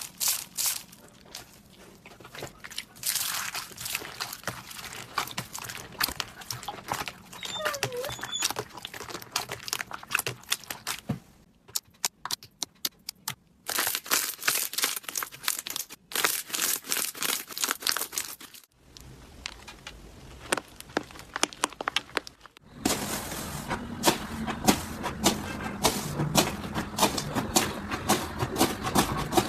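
Slime being squeezed and worked by hand, giving dense crackling and popping clicks. The sound changes abruptly several times as one clip gives way to the next.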